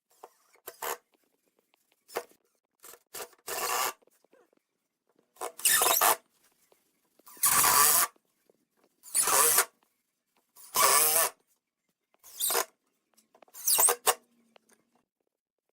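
A hand tool working wood in repeated scraping strokes, each under a second and about one and a half to two seconds apart, with short pauses between.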